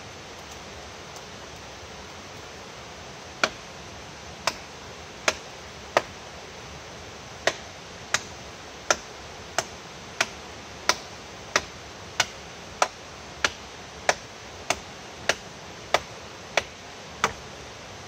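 Steady, evenly spaced chopping strikes on wood, about one and a half a second, starting a few seconds in, over a steady rushing hiss.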